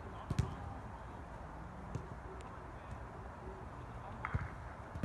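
Sharp thuds of a football being kicked during play: a loud one about a third of a second in and another a little after four seconds, with a fainter one in between, over steady background noise.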